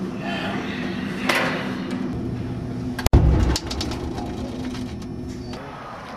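Steady machine hum, then a loud thump about three seconds in as the door of a front-loading laundromat machine is shut, followed by a few short clicks.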